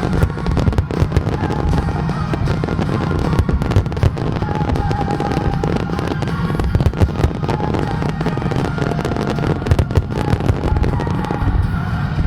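Fireworks going off in a dense, unbroken string of bangs, with music playing underneath.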